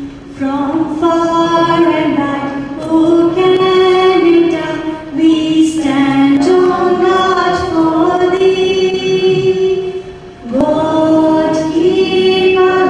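A woman singing into a microphone over a PA: a slow melody of long held notes, sung in phrases with short breaks between them.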